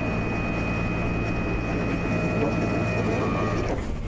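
Tow truck's winch reeling in its cable, with the truck's engine running and a steady high whine that stops just before the end.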